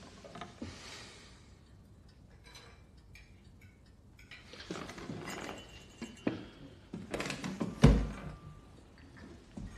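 Quiet room with faint clicks and the rustle of someone moving, then a wooden chair being handled: a few knocks and a heavy thump about eight seconds in as the chair is shifted on the floor.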